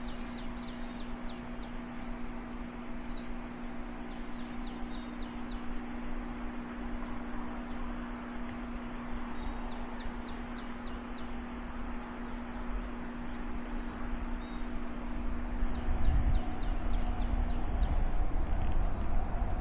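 A bird calling in rapid runs of short descending chirps, about four runs, over a steady hiss and a low steady hum. A low rumble comes in near the end.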